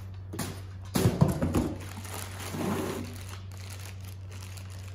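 Clear plastic wrapping around a new turbocharger crinkling as it is handled and peeled open, with a few knocks about a second in, over a steady low hum.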